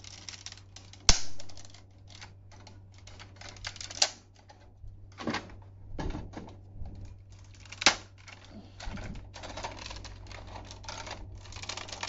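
Hard plastic parts of a DX Tridoron toy car clicking, rattling and knocking as they are handled and a wheel is pulled off and swapped. Sharp snaps come about a second in, around four seconds and just before eight seconds.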